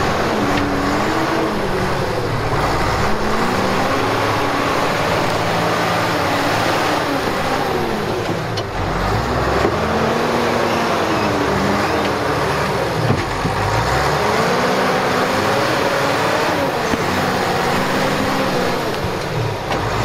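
John Deere cable skidder's diesel engine working hard as it digs out a stump with its front blade: the revs swell and drop back again and again.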